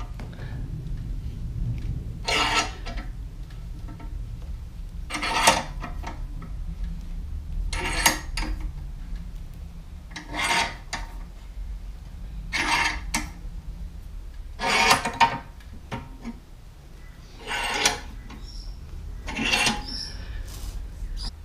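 Hand-cranked motorcycle scissor jack being wound up by its crank handle: a short metallic rasp on each turn, about one every two to three seconds, as the jack lifts the bike.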